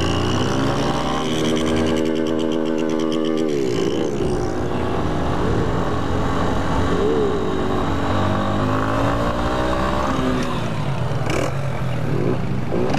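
Motorcycle engine pulling up through the revs as the bike gathers speed. There is a sharp drop in pitch at a gear change a few seconds in, then it climbs again. Around ten seconds in the revs fall away as the bike slows, with rushing wind noise throughout.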